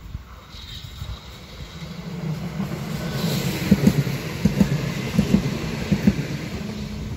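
Dortmund Stadtbahn high-floor light-rail car, a Düwag Stadtbahnwagen B type, approaching and passing close by. A rising rumble with a steady low hum, then a run of sharp wheel knocks over the rail joints as the car goes past, loudest about four seconds in.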